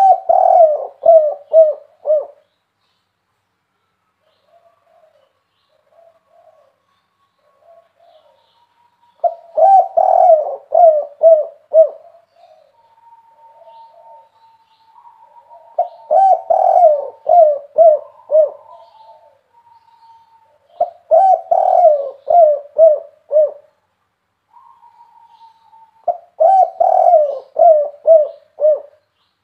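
Spotted dove cooing: five loud bouts of quickly repeated low coos, each lasting two to three seconds, with softer single coos between them. It is a big-voiced song of the 'kuk 3' type, as Indonesian dove keepers class it.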